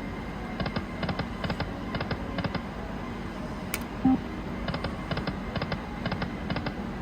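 High Stakes Lightning Cash video slot machine spinning its reels: quick clusters of clicks repeat about twice a second. A short beep comes about four seconds in.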